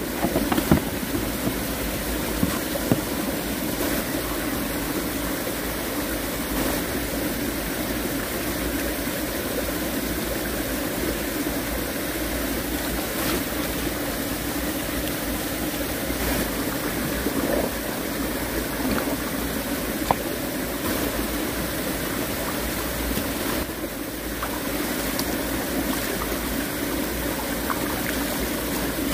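Shallow mountain stream running steadily over rocks, with now and then a small splash as hands rinse roots and greens in the water.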